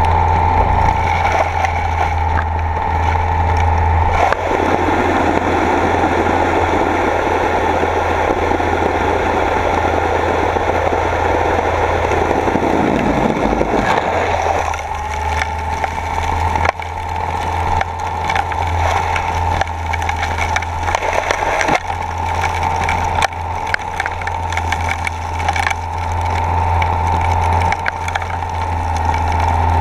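Submersible dredge pump and suction nozzle running, heard underwater: a steady machine hum and whine with scattered clicks and knocks as sediment is drawn into the nozzle. For about ten seconds after the start, a rushing wash swells over it and the whine fades. The whine then comes back.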